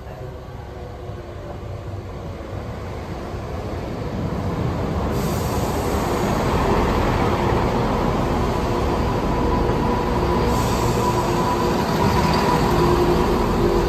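Class 171 Turbostar diesel multiple unit running in alongside the platform: its underfloor diesel engines and wheels on the rails grow louder over the first six seconds as it comes level, then hold steady as the carriages pass close by. A steady whine rides over the rumble in the second half.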